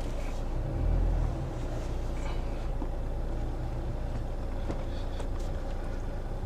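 2009 Toyota Corolla driving straight, heard from inside the cabin: a steady low rumble of road and engine noise with a few faint ticks.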